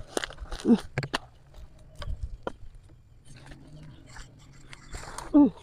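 Dry branches for firewood cracking, snapping and rustling as they are pulled and dragged by hand through undergrowth, with sharp cracks at the start, about a second in, and again near the end. Two short falling vocal sounds are heard, one early and one near the end.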